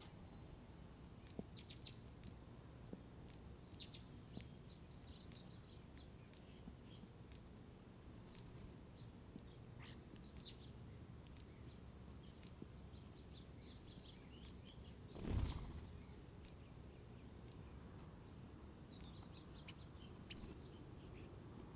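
Faint, scattered short high-pitched bird chirps, a few at a time, over quiet outdoor background, with one brief whoosh of noise about two-thirds of the way through.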